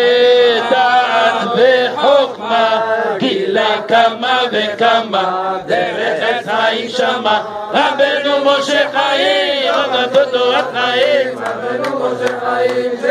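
A group of men singing a Hebrew piyyut together in chorus, a melody that bends and carries on without a break.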